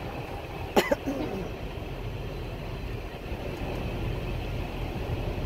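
Tour tram idling with a steady low rumble, and one short sharp sound about a second in.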